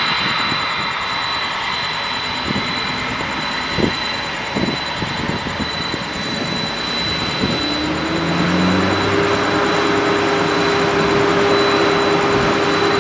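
Boeing 767 jet engines running, with a steady high whine over a broad rush. About eight seconds in, a lower tone rises and then holds, and the engines grow louder.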